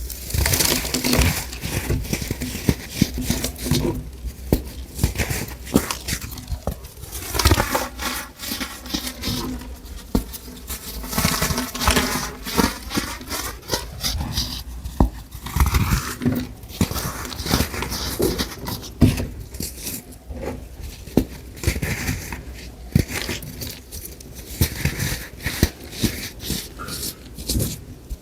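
A crunchy, crumbly grey semicircular block being crushed and crumbled by hand: a dense, continuous run of crackles and crunches.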